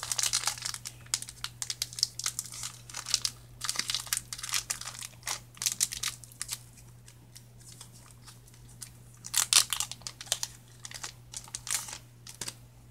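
Foil wrapper of a Pokémon trading-card booster pack being torn open and crinkled by hand: irregular crackling rustles, with a louder burst of crinkling about nine and a half seconds in.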